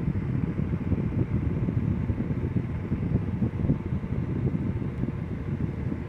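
Holmes Blizzard desk fan running, a steady rush of air that is mostly low in pitch and uneven, its airflow buffeting the microphone.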